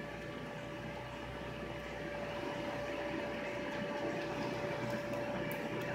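Steady electric motor hum of the air blower that keeps an inflatable water slide inflated, with a constant whine and a faint hiss, growing a little louder about two seconds in.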